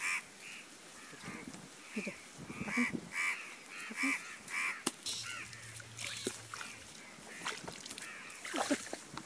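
Short high animal calls repeated about twice a second, thinning out in the second half, with a few sharp knocks from digging into the muddy bank.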